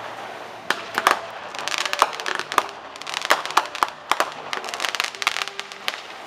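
Consumer fireworks going off in rapid, irregular succession: many sharp pops and crackles, several a second.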